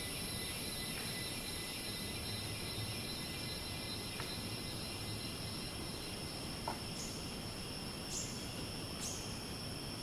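Tropical rainforest ambience: cicadas keep up a steady, high-pitched drone, with a few short chirps spaced through it, more of them in the second half.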